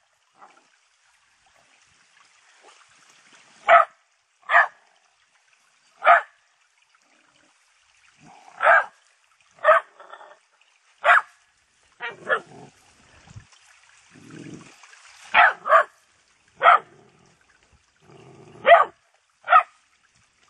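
Dog barks, short and sharp: about a dozen single barks at uneven intervals, some in quick pairs, with faint rustling between them.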